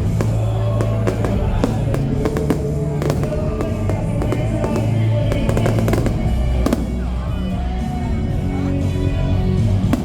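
Fireworks going off in rapid, irregular cracks and bangs, thickest in the first few seconds, over loud music with a steady bass line.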